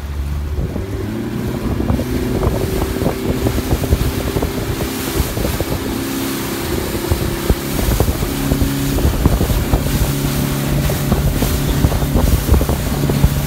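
Speedboat engine running under way, a steady drone whose note picks up and grows louder about a second in, with wind buffeting the microphone.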